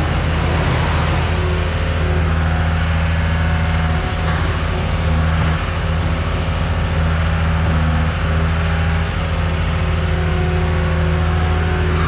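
Diesel engine of farm machinery running at a steady speed: a loud, constant deep drone that holds one pitch throughout.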